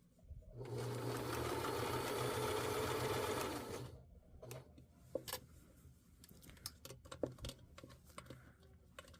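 Sewing machine running steadily for about three and a half seconds as it stitches through denim, then stopping; scattered light clicks and taps follow.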